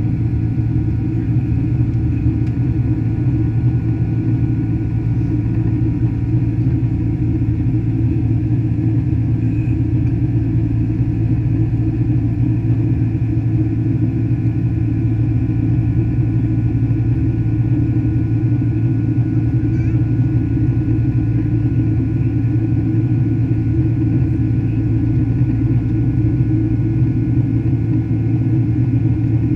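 Cabin noise inside a Boeing 767-300 twinjet in its climb after takeoff: a steady, low rumble of engines and rushing air, with a few faint steady tones above it.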